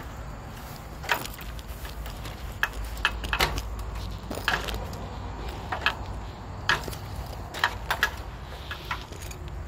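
Irregular clicks and knocks with some rustling, about one a second, over a steady low rumble: handling noise from a phone being carried and moved about in the hand.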